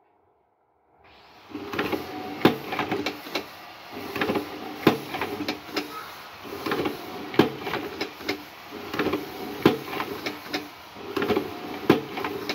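Homemade semi-automatic cigarette filter-tube injector machine of 3 mm steel plate working through repeated cycles. Each cycle is a rattling, sliding stroke ending in a sharp metal clack, about once every two and a half seconds. It starts about a second in.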